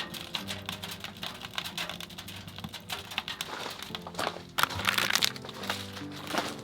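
Crinkling and rustling of packaging, with a louder rustle about two-thirds of the way in, over soft background music.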